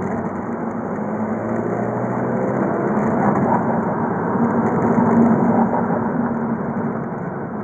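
VW Golf V 2.0 TDI BKD four-cylinder turbodiesel running under way, growing gradually louder to about five seconds in as it pulls, then easing off a little.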